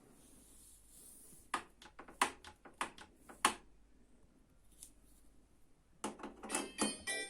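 Sharp clicks and knocks of hard plastic parts being handled, then a burst of dense rattling and scraping near the end, as a front-loading washing machine's door and handle are worked on by hand.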